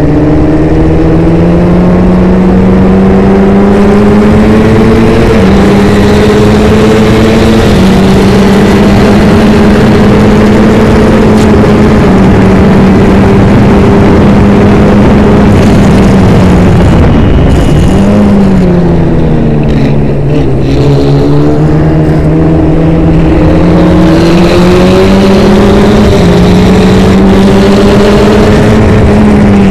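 Formula Ford's Ford Kent crossflow four-cylinder engine under hard acceleration, heard from inside the open cockpit: the note climbs and drops sharply at each quick upshift, twice in the first eight seconds. Past halfway it falls away under braking, with a short throttle blip on a downshift, then climbs again as the car pulls out of the corner.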